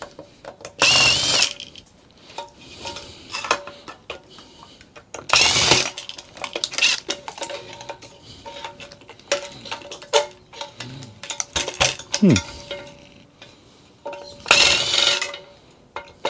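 Handheld drill with a bit extension whirring in three short runs, about half a second, five seconds and fourteen seconds in, as it backs screws out of an amplifier chassis. Small metallic clicks and knocks come between the runs.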